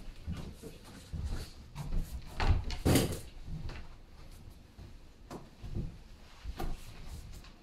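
Cardboard boxes knocking and scraping on a wooden plank floor, a string of short thuds with the loudest about three seconds in.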